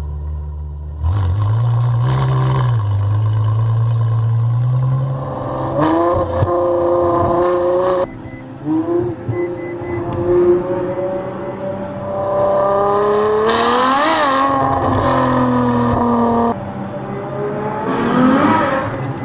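Ferrari F12 Berlinetta's 6.3-litre V12 engine and exhaust: a low idle, then held revs, then the note climbing as the car accelerates hard. The sound jumps abruptly several times.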